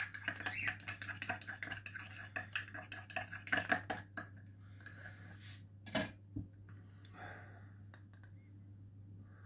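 A metal teaspoon stirring and clinking in a small plastic cup, mixing thick hand-feeding formula with water to thin it. The clinks are densest in the first few seconds, with one sharp click about six seconds in, over a steady low hum.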